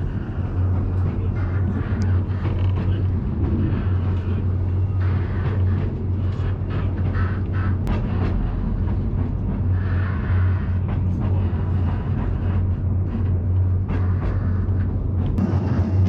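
Ikawa Line train running up the steep Abt rack section: a steady low hum with wheel-and-rail clatter and scattered short clicks.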